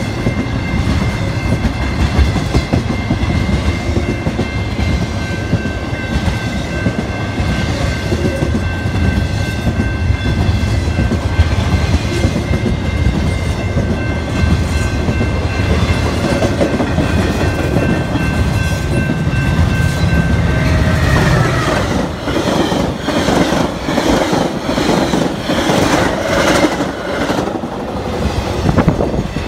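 Empty intermodal freight train rolling past a grade crossing: a continuous rumble of wheels and cars with a few steady high ringing tones over it. In the last several seconds the sound turns into sharp, rapid wheel clatter.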